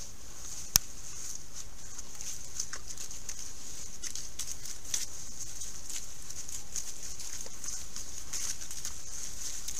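Wild boars rooting through dry leaf litter: scattered rustling and crunching of leaves over a steady high-pitched hiss, with one sharp click just under a second in.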